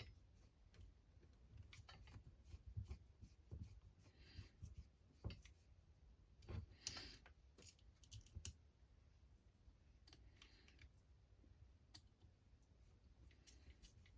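Faint, scattered clicks and light taps of small RC crawler parts and hand tools being handled during chassis reassembly, with a low hum underneath.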